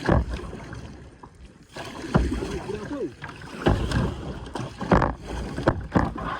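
Water splashing and sloshing in irregular surges as people swim and tow a capsized kayak.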